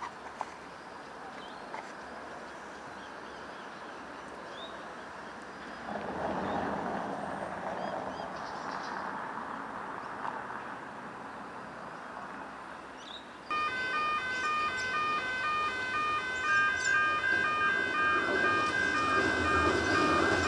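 Adelaide Metro 4000-class electric train running faintly over the junction tracks. About two-thirds of the way through, a railway crossing warning alarm starts, a repeating pattern of electronic tones. Near the end the rumble of an approaching electric train grows louder.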